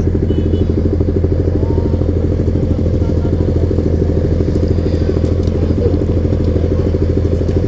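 Suzuki GSX-R1000's inline-four engine idling steadily just after start-up.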